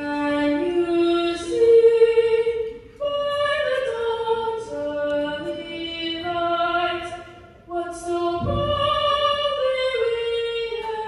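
A woman singing solo into a microphone, in long held notes that step from pitch to pitch.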